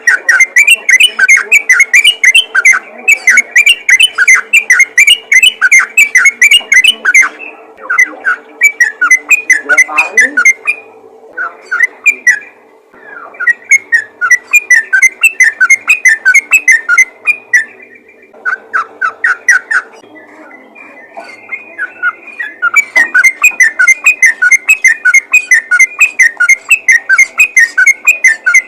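Yellow-vented bulbul (trucukan) singing in rapid 'ropel' style: long, fast strings of short, loud chirping notes, several a second, broken by brief pauses about ten and eighteen seconds in.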